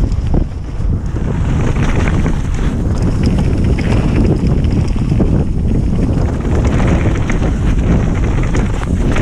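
Wind buffeting the microphone as a mountain bike rides fast down a rough dirt trail, with tyre rumble and short clicks and rattles from the bike over stones.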